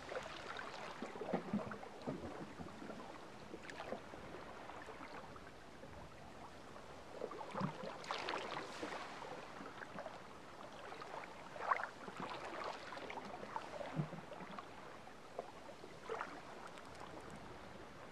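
Small sea waves lapping against a shoreline rock: soft, irregular splashes and gurgles over a steady wash of water, with a few louder splashes around the middle.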